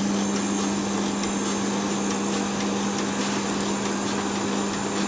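FR900 continuous band sealer running with its conveyor motor and cooling fan switched on, giving a steady hum over a constant whirring noise.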